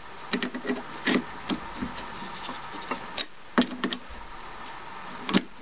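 The plastic body of a Dremel-type rotary tool being screwed by hand into a freshly threaded cast-iron holder chucked in a lathe: irregular rubbing and scraping as the threads engage, with a few light clicks.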